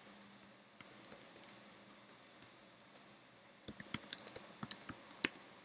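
Typing on a computer keyboard: quick key clicks in two short flurries, one about a second in and a busier one in the second half, ending with one harder keystroke.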